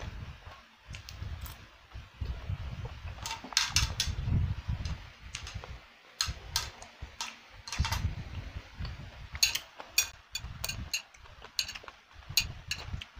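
Close-miked eating sounds: chewing and mouth noises picked up by a clip-on microphone on the eater's shirt, with scattered sharp clicks of chopsticks and fork against the plate as fried noodles are picked up.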